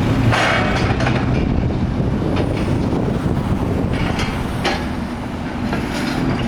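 Kubota SVL95-2S compact track loader's diesel engine running steadily, with several sharp metallic clanks.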